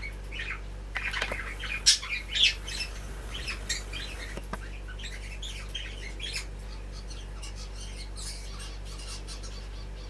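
Common starlings squabbling at a feeder, giving many short, harsh squawks and chirps, busiest in the first few seconds and thinning out toward the end, over a low steady hum.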